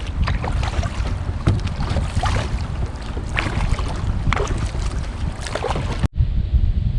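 Wind buffeting the microphone with a low rumble, while kayak paddle blades splash into the water about once a second. The splashing stops abruptly about six seconds in, leaving only wind.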